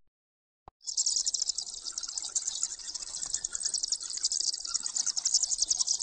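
High-pitched insect trilling, like a cricket chorus: a dense, rapid, steady pulsing that starts about a second in, just after a single brief click.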